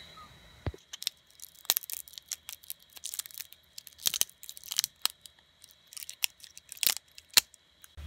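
Black PETG support structure cracking and snapping as it is picked off a freshly 3D-printed knob by hand: an irregular run of sharp little cracks and clicks, with a couple of louder snaps near the end.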